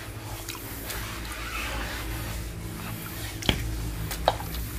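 Light clicks and knocks of a scoop net and plastic tubs being handled, with a sharp click about three and a half seconds in and another near the end, over a steady low hum.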